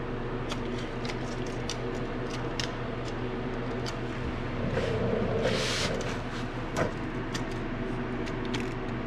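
Small clicks and taps of a steel tape measure and marker being handled against a wooden post, over a steady background hum. A brief hiss comes about five and a half seconds in, and a single knock just before seven seconds.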